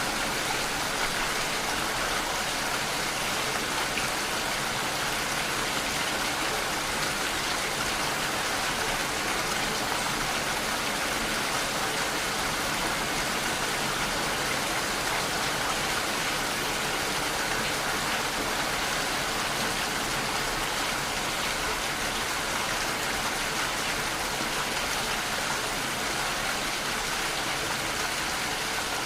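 Steady, even sound of falling rain, with no change in level throughout.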